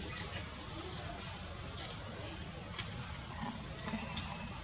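Short, very high chirps, each dipping and rising in pitch, repeated about every second and a half over a low, steady background hum.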